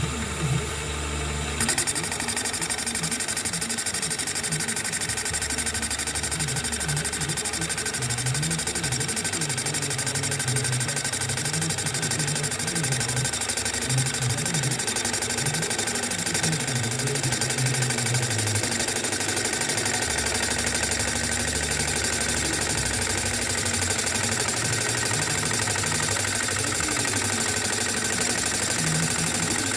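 Milling machine boring out the crankshaft chamber of an aluminium Minarelli AM6 moped crankcase, running steadily with the cutter working the metal. The machine noise steps up about two seconds in and then holds even.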